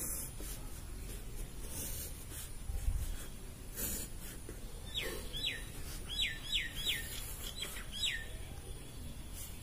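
Pencil strokes scratching briefly across paper as short straight lines are drawn. About five seconds in, a bird gives a quick run of about seven short chirps, each falling in pitch.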